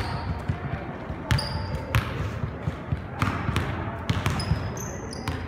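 Basketball dribbled on a hardwood gym floor: irregular sharp bounces, about eight in all. Near the start and again near the end come a few short high squeaks of sneakers on the floor.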